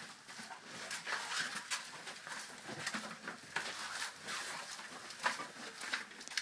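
Footsteps and scuffs on a concrete path, an irregular run of short taps and shuffles over a light hiss.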